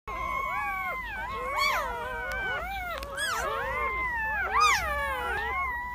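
Several newborn puppies whining and squeaking at once: high, thin cries that overlap and slide up and down in pitch without a break.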